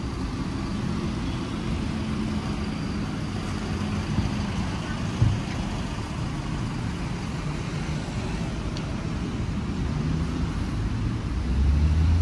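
Street traffic noise: a steady low rumble of vehicle engines, with a short knock about five seconds in and a louder engine rumble near the end.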